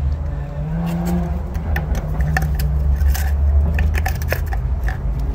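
White PVC pipe scraping and clicking against concrete as it is pushed into a freshly drilled hole in a concrete block wall. The clicks come at irregular intervals.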